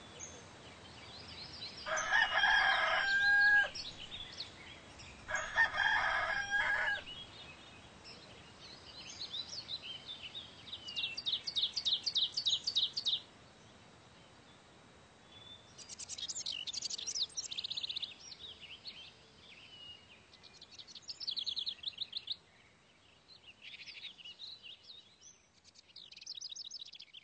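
A rooster crowing twice, each crow held about a second and a half, followed by small birds chirping in quick, high trills that come and go.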